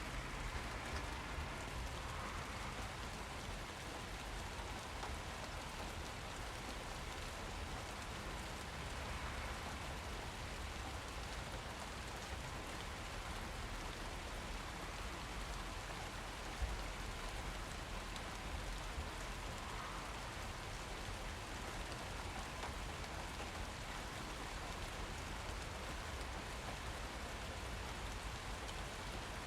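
Steady rain falling, a constant hiss of drops on surfaces with scattered louder drips and a slightly louder tap about two-thirds of the way through.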